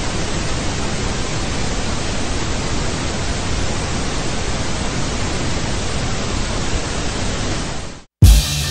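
Steady TV-static hiss, a white-noise sound effect, which cuts off abruptly about eight seconds in. A loud music track with a heavy kick drum starts right after.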